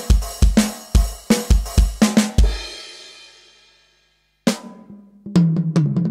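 Alesis DM8 Pro electronic drum kit playing its built-in drum sounds: a fast, even run of kick and snare hits for about two and a half seconds that rings out into a short silence. Then one sharp hit, and near the end a quick fill of lower, pitched drum hits.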